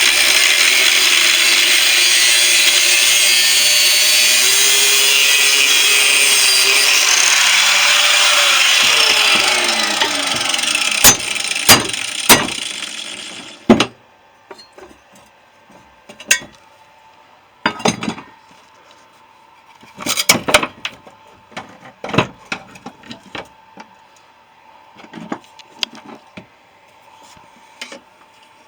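A power cutting tool running hard as it cuts through the steel shell of a refrigerator compressor, its pitch shifting under load, then winding down about ten seconds in. Sharp metal knocks and clanks follow as the cut pieces are handled.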